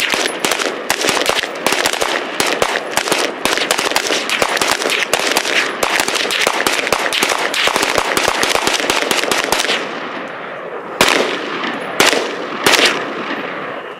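Rapid, overlapping gunshots from several shooters firing at once. About ten seconds in the firing thins out to three last single shots.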